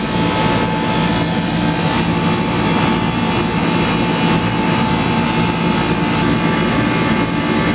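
Air-conditioner condensing unit running steadily, its condenser fan blowing and its compressor humming, with a few steady tones held throughout. Both are running again now that the burned-out fan capacitor has been replaced.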